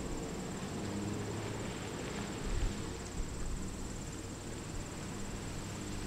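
Steady high-pitched insect chorus with a fast, even pulse, over a low engine rumble from a school bus pulling away.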